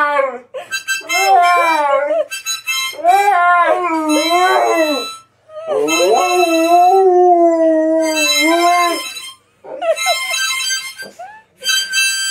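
Husky howling along with a harmonica in a series of long, wavering, gliding notes, the longest held for about three seconds. Near the end the howling stops and the harmonica plays a steady held chord.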